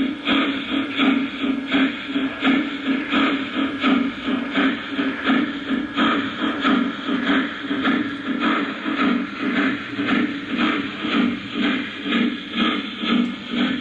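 Lionel Legacy O-gauge Union Pacific Big Boy model steam locomotive running, its onboard sound system playing a steady, rhythmic steam chuff at about two beats a second.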